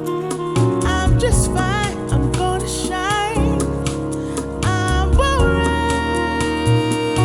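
A music track played through HiFiMAN planar-magnetic headphones and picked up by microphones: steady bass and regular drum strikes under a melody line with vibrato.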